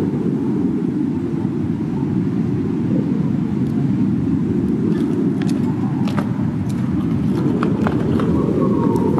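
Wind rumbling on the microphone: a steady low roar, with a few faint light clicks in the second half.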